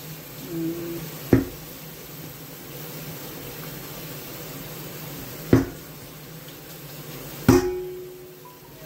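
Tap water running into an aluminium pot of pounded cassava leaves, with three sharp knocks of the pot against the stainless-steel sink; the last, near the end, rings briefly.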